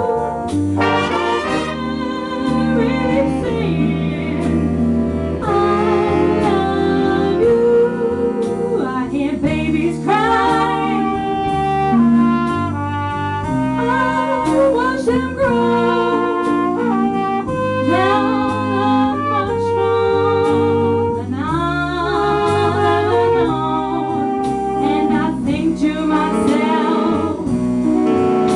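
Youth jazz band playing live: brass and saxophones in a slow ballad arrangement, with a wavering lead melody over held chords and a steady bass line.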